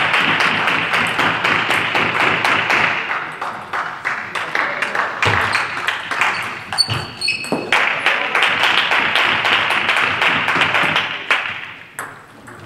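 Spectators clapping after a table tennis point, twice, each burst lasting about four seconds. Between the bursts comes a short rally with the light clicks of the ball and a few short high squeaks.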